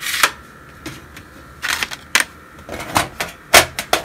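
Faber-Castell watercolour pencils clicking and rattling against their metal tin as they are handled, in a run of sharp clacks. The loudest clack comes about three and a half seconds in, as the tin's lid is shut.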